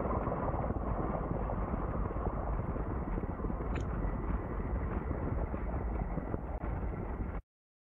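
Steady rumble of a drone in flight, as picked up by its onboard camera: engine and wind noise. It sounds dull, with no high end, and cuts off suddenly near the end.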